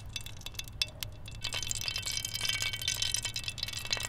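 Hot cooking oil starting to sizzle and crackle, growing denser about a second and a half in.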